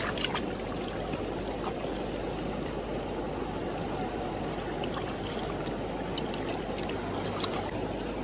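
Shallow river water flowing over stones: a steady rush with no let-up.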